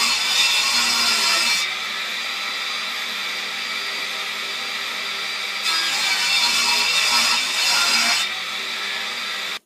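Table saw running with its blade spinning, ripping a wooden board along the fence twice: a louder, brighter cutting sound up to about a second and a half in and again from about six to eight seconds, with the saw running steadily between the cuts.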